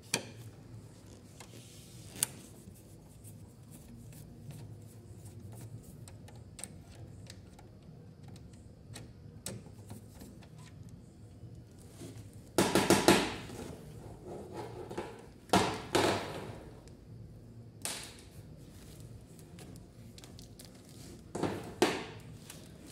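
Screwdriver working screws out of a Kyocera TASKalfa copier's fuser unit: scattered light clicks and metal scrapes, with louder knocks and rattles a little past halfway, again a few seconds later, and near the end.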